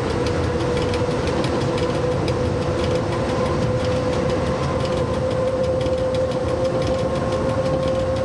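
Cab noise of an FS E.656 electric locomotive running at speed, with a steady whine that rises slightly in pitch. An oncoming passenger train rushes past on the next track.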